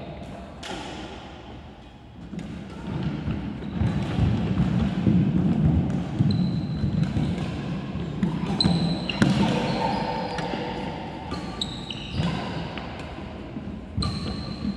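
Badminton rally: sharp racket strikes on the shuttlecock, players' footsteps thudding on the wooden court floor, and several brief high squeaks of court shoes on the floor in the second half.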